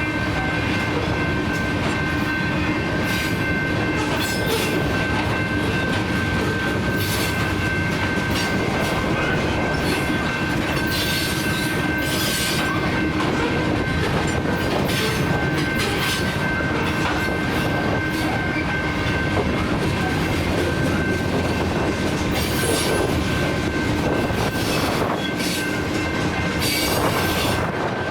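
Freight cars of a Canadian National potash train rolling past: a steady rumble with repeated clacks of wheels over rail joints and a steady high-pitched wheel squeal.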